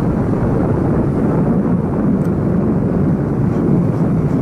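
Steady rumble of a motorcycle on the move, with wind on the microphone.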